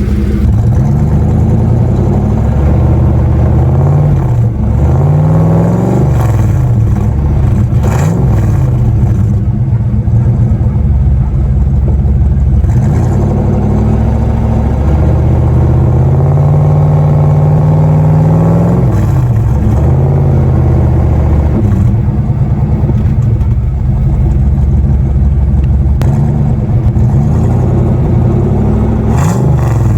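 Jeep 5.2-litre V8 running through a Flowmaster FlowFX performance muffler, idling steadily and revved several times, its pitch rising and falling back to idle with each throttle blip.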